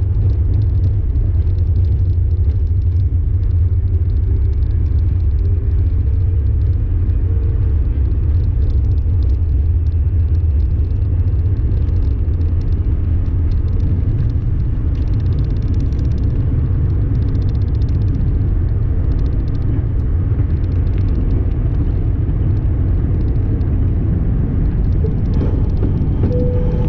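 Steady low rumble inside the cabin of an Airbus A380 powered by Rolls-Royce Trent 900 engines, with the engines and airflow heard during the takeoff and climb-out, holding an even level throughout.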